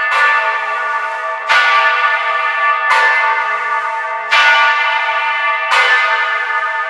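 Florence Cathedral's great bell 'Santa Reparata', a 5,385 kg bronze bell cast by Antonio Petri in 1705 and tuned to La2 (A), being rung. It is struck five times, about one stroke every one and a half seconds, and each stroke rings on into the next.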